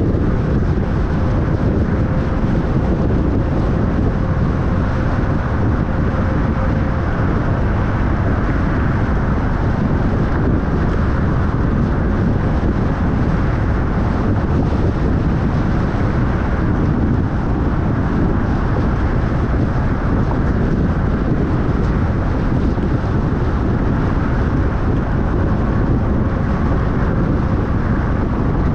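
Steady low rumble of a car driving, with road and wind noise and a faint hum in the first several seconds.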